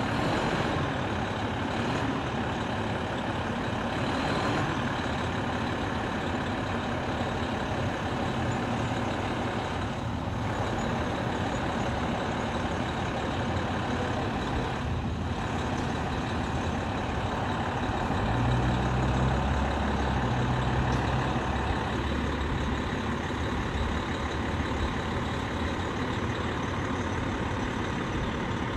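Fire engine's diesel idling steadily, with a deeper rumble swelling for a few seconds past the middle.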